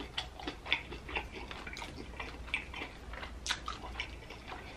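A person chewing food with wet smacking and clicking mouth sounds, irregular, several a second.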